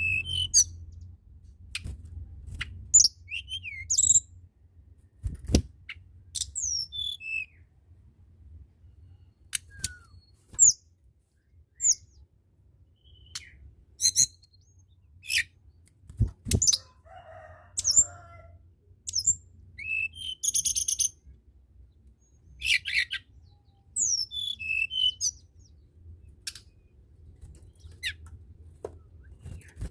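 Tledekan gunung, a small Indonesian flycatcher, singing in scattered phrases of short high chirps and sharp downslurred whistles, a second or so apart, over a steady low hum. Two dull thumps come about a third and halfway through. This is a recording of the kind played to stir a reluctant caged bird into song.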